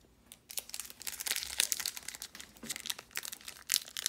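Foil wrapper of a Pokémon trading card booster pack crinkling in the hands, a dense run of quick crackles starting about half a second in.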